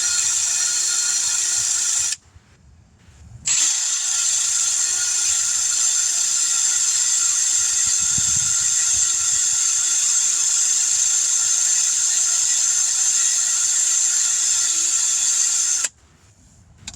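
Drill running at speed to scour rust off a brake caliper slide pin. It stops about two seconds in, starts again a second and a half later, and runs steadily until it cuts off near the end.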